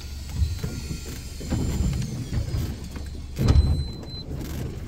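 A fishing reel winding in line from deep water, a thin high whine, over the low steady rumble of a small boat at sea. There is a knock about three and a half seconds in.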